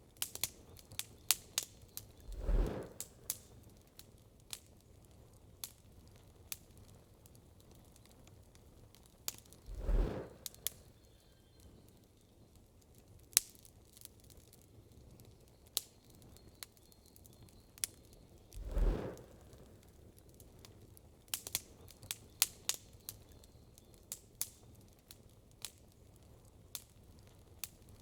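Wood campfire crackling with sharp pops and snaps, irregular and clustered in places. Three short, low rushing swells come about eight seconds apart and are louder than the crackle.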